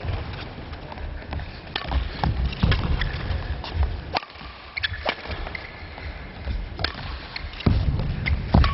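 Table tennis ball clicking sharply off bats and table, irregularly spaced, with low thuds under several of the clicks.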